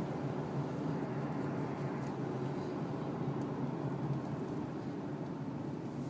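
2007 Dodge Dakota pickup running, a steady low hum with a couple of faint ticks.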